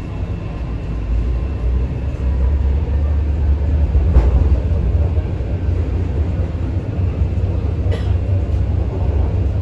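Interior noise of an MTR C-train electric metro train in motion: a low rumble of wheels and traction gear that grows louder over the first few seconds as the train gathers speed, then holds steady. Two faint knocks come through, about four and eight seconds in.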